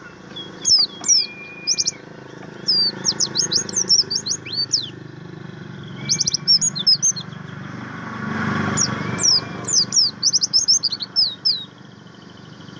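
A white-eye (pleci, the buxtoni form) singing: bursts of quick, high, falling chirps in rapid runs, with a few short held whistle notes between them. A steady low hum runs beneath, and noise swells briefly about two-thirds of the way through.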